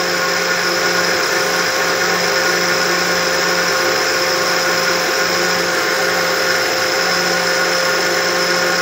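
Electric countertop blender running steadily, its motor giving a constant whine as it blends a milkshake of milk, Oreo biscuits and ice cream.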